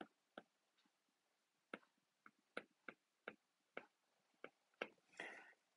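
Faint, irregular clicks of a stylus tip tapping on a tablet screen during handwriting, about ten in all, with a brief soft noise about five seconds in.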